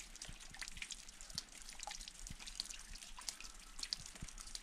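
Faint, irregular drips of water falling from a wet rock face, many small drops a second, landing in and around a plastic bottle set beneath to catch them.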